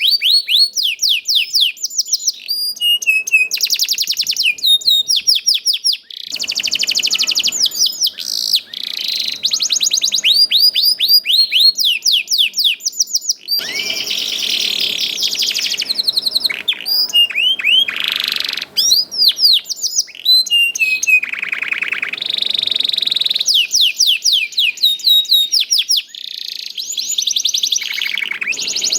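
Domestic canary singing a continuous song: fast trills of repeated falling chirps that change from phrase to phrase, with a few harsher buzzy passages.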